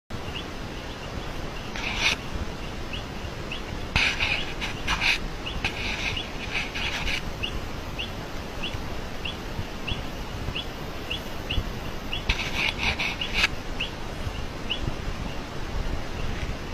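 An animal call: a short, high chirp repeating evenly, a little under twice a second, over a steady hiss. Louder noisy bursts break in a few times, around two seconds in, from four to seven seconds, and again around twelve to thirteen seconds.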